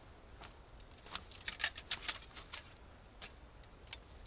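Irregular sharp clicks and snaps, thickest between about one and two and a half seconds in.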